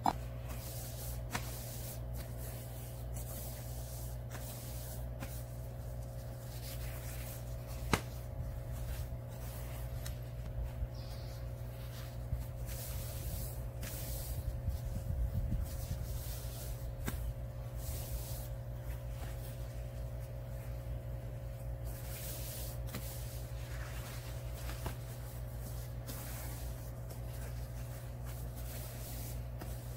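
Kitchen paper rustling and crinkling as hands fold and press it around a raw fish fillet, with scattered small clicks, one sharp click about eight seconds in, over a steady low hum.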